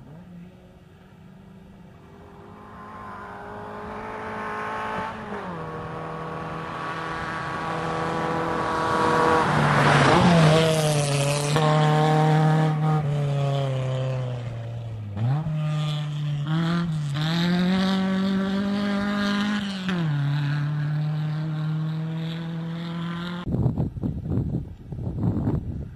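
Rally car engine at hard throttle on a gravel stage, its pitch climbing and dropping through a series of gear changes and loudest as the car passes about ten seconds in, with a hiss of tyres on gravel. Near the end the engine sound stops and gusts of wind noise on the microphone take over.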